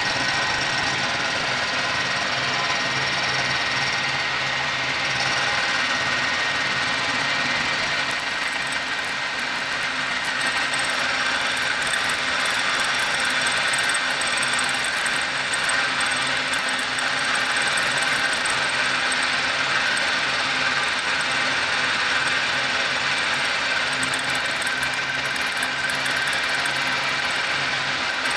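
Homemade metal lathe running, its chuck turned by a treadmill motor: a steady mechanical hum that gets louder and rougher about eight seconds in, with a thin high whine added.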